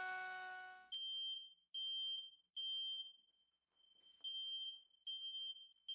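A handheld trim router runs with a steady high whine and shuts off about a second in. Then an alarm beeps repeatedly, a high piercing beep roughly every 0.8 seconds, in the manner of a smoke alarm going off.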